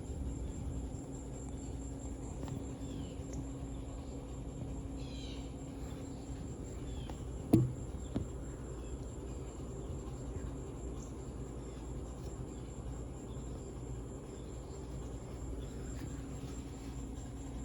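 Harbor Breeze Lakeside II ceiling fan's motor humming steadily as it turns slowly on a bad capacitor. A steady high thin trill runs alongside, and two sharp knocks come about seven and a half and eight seconds in.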